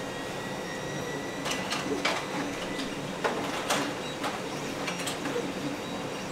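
Objects being handled and set down on a cluttered workbench: a scatter of light clicks and knocks over a steady background hum.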